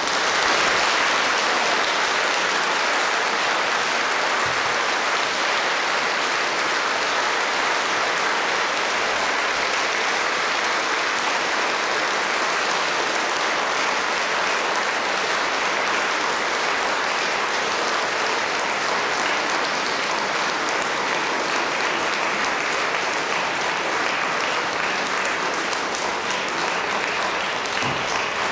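Concert audience applauding, breaking out all at once and continuing as steady, dense clapping.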